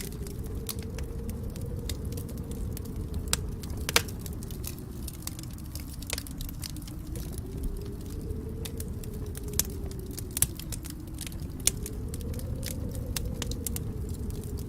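Wood fire crackling: a steady low rumble of burning logs with frequent sharp pops and snaps, a few of them louder than the rest.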